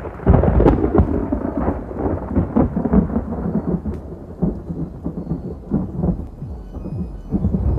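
Rumbling thunder with a series of sharp cracks, a muffled storm sound laid over the opening.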